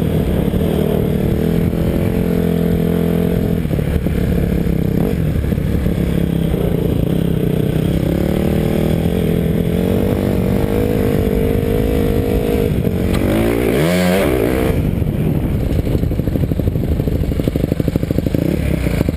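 Dirt bike engine running steadily under way; about thirteen seconds in it revs up sharply and falls back, then settles to a steady pitch again.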